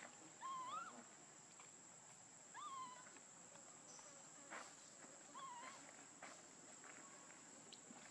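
Three soft, short coo calls from a pig-tailed macaque, each a wavering tone that bends up and down, spaced about two seconds apart, over a steady high-pitched insect buzz.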